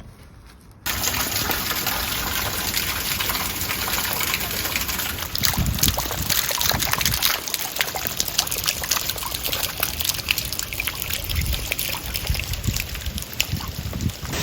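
Heavy rain falling: a dense, steady hiss full of sharp individual drop hits, starting abruptly about a second in.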